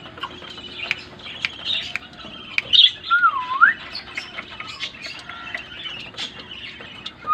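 Pet birds chirping and clicking in quick high notes, with a squawk and then a whistle that dips and rises about three seconds in; a talking parrot is among them.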